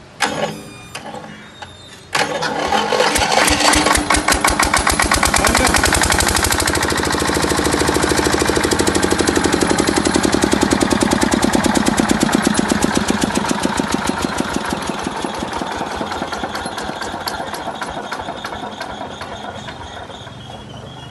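Diesel engine of a 10 kVA generator set started on its electric starter. After a brief burst of cranking, it catches about two seconds in and runs with an evenly spaced firing beat that quickens for a few seconds and then settles to a steady run. The sound slowly grows fainter in the second half.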